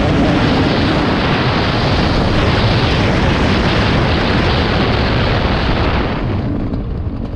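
Yamaha YZ144 two-stroke motocross bike ridden down a dirt straight, its engine buried in a heavy rush of wind on the helmet-mounted microphone. About six seconds in the throttle closes and the sound drops away.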